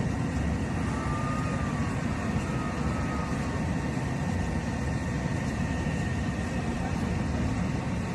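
Steady, unbroken machine noise from a robotic welding cell, a dense low crackling hum with a faint high steady tone above it.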